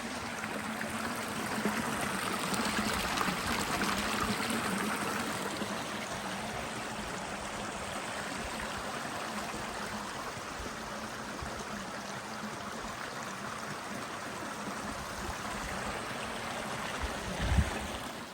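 A small stream trickling and babbling steadily, louder for a few seconds near the start. There is one low thump near the end.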